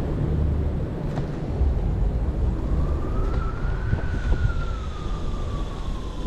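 Wind rushing over the microphone of an electric scooter riding at speed. About halfway through, a single tone slowly rises and then falls away again.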